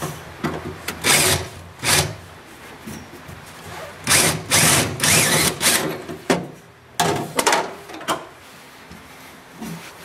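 Cordless drill boring into the steel firewall of a BMW E36 in several short bursts, the longest, about four seconds in, running for nearly two seconds.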